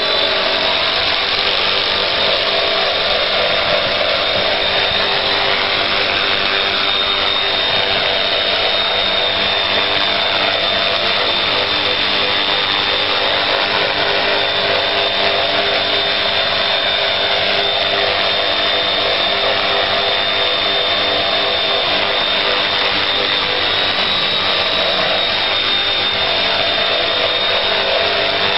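Small electric RC model helicopter (Bell UH-1 Huey) running steadily, its motor and rotor giving a constant high whine.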